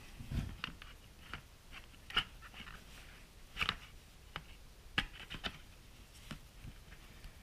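Scattered light clicks and knocks of a headlight mask assembly being handled and set down inside its cowling.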